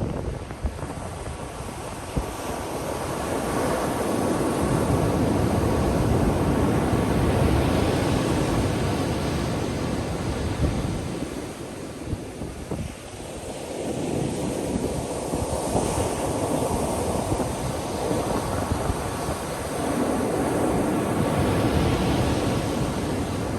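Ocean waves breaking and washing up the beach in slow surges, each swell building and easing over several seconds, with wind buffeting the microphone.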